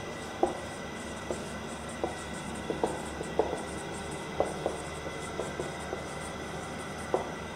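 Marker pen on a whiteboard as a sentence is written: a scatter of short, light taps and ticks at uneven intervals where the tip meets the board. Under it runs a steady room hiss with a faint high tone.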